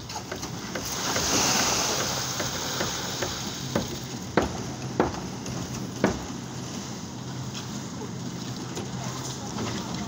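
Hand concrete work: wet concrete sloshing and being shovelled, with a few sharp metal knocks of shovels and wheelbarrows around the middle, over a low steady hum.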